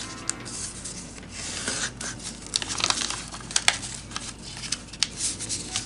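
Sheet of kami origami paper being folded and a flap squashed flat by hand: irregular rustling and crinkling, with sharp crackles as creases are pressed down, the loudest about three and a half seconds in.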